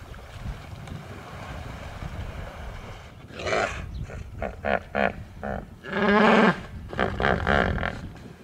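Hippos calling from the water: a run of loud, deep honking grunts starting about three seconds in, some short and clipped, the loudest and longest around six seconds. They come from a pod disturbed by the chase through their waterhole. A low steady rumble lies under the first few seconds.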